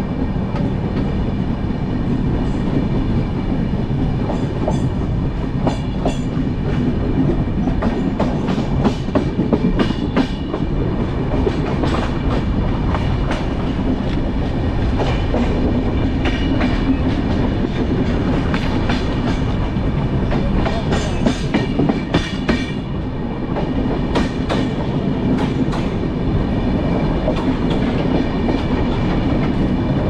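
Wheels of the 11071 Kamayani Express passenger coaches rolling over the track and clattering across points as the train changes tracks, irregular clusters of sharp clicks and knocks over a steady rumble.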